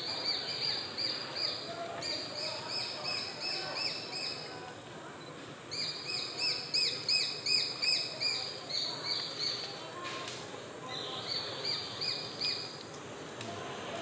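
Juvenile Japanese sparrowhawks calling: runs of repeated high, slightly falling notes, about three a second, broken by short pauses.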